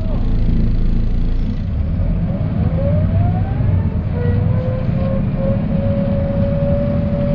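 1995 Mercedes-Benz O408 bus's OM447hLA diesel engine running with a steady low rumble, plus a drivetrain whine. The whine drops away at the start, glides upward about two and a half seconds in, and settles into a steady whine from about four seconds in.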